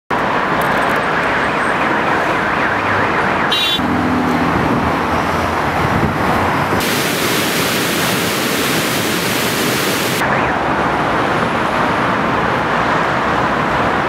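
Steady city road traffic noise. About four seconds in there is a short low tone, and from about seven to ten seconds a brighter, even rushing hiss takes over before the traffic noise returns.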